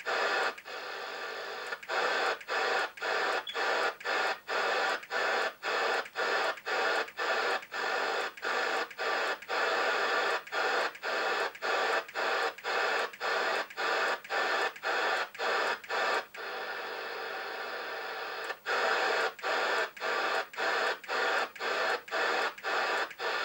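Albrecht AE6199 CB radio hissing with static from its speaker, the squelch turned fully down on empty channels. The hiss is cut by short gaps about twice a second as the channels are stepped through, with one unbroken stretch of about two seconds a little past the middle.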